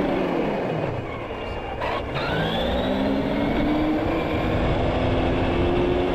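Electric RC truck motor and drivetrain whining: the pitch falls as it slows over the first second, then climbs steadily as it speeds up again after a brief break about two seconds in.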